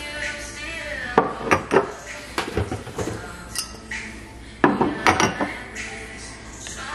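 Drinking glasses clinking and knocking as they are set down on a wooden kitchen cabinet shelf: a string of sharp clinks, some in quick pairs.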